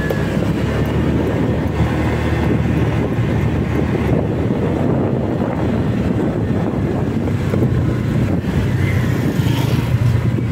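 A Honda Click 125i scooter's single-cylinder engine running while riding, picking up speed and then easing off, with wind rumbling across the microphone.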